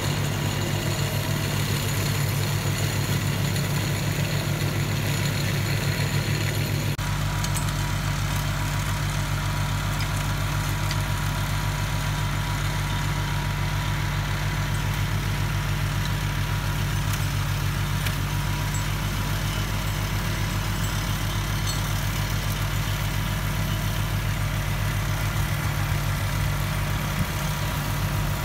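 SAME Frutteto 60 tractor's diesel engine running steadily while it drives a rear-mounted flail mower through the plants. The sound changes abruptly about seven seconds in.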